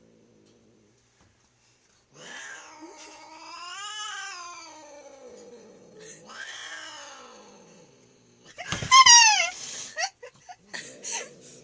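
An agitated cat yowling as it is handled: two long, drawn-out growling yowls that rise and fall in pitch, then about nine seconds in a short, loud, shrill screech falling in pitch.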